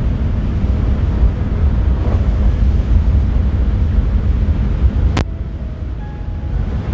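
Steady low rumble of wind buffeting the microphone over the running ferry, with one sharp click about five seconds in.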